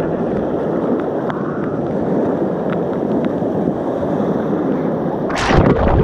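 Rushing, churning floodwater rapids running loud and steady close to the camera. About five seconds in comes a louder splash as a wave of water breaks over the camera.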